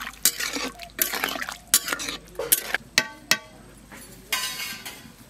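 Metal ladle stirring chicken curry in a metal kadai, knocking and scraping against the pan in a run of sharp clinks, some with a short metallic ring, and a brief scrape near the end. The meat is being sautéed in its masala with a little water.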